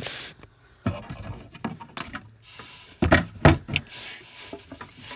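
Knocks, clicks and rustling from a plastic hamster cage and toy being handled, the loudest knocks a little past the middle.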